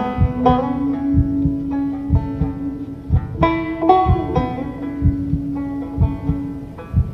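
Slow banjo music: single plucked banjo notes ringing out over a held low note that shifts pitch twice.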